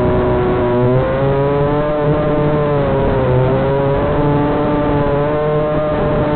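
Walkera Hifa multirotor drone's electric motors and propellers whining in flight, heard from its onboard camera. The pitch wavers with throttle, dipping about three seconds in and rising again.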